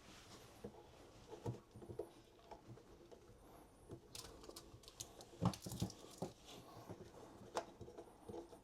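Scattered light clicks and knocks of plastic plumbing fittings being handled and screwed together by hand, with a louder cluster of knocks about five and a half seconds in.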